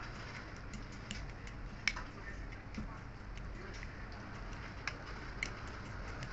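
A utensil clicking and tapping irregularly against a bowl while ingredients are mixed, with a few sharper knocks about two seconds and five seconds in.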